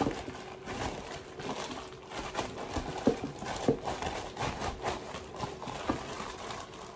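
Plastic-bag-covered hands pressing and shaping ground beef on a baking tray: plastic crinkling with soft, irregular pats and slaps.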